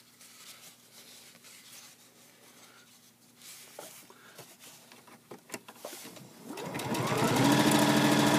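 Faint clicks and fabric rustling, then about six and a half seconds in the Juki HZL-70 sewing machine starts up. Its motor whine rises in pitch and settles to a steady, loud sewing speed as it stitches through denim.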